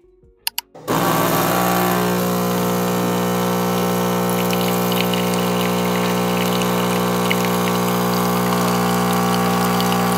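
Philips automatic espresso machine brewing, its pump running with a loud, steady hum as coffee pours from the spout into a mug. Two quick clicks come just before it starts abruptly about a second in.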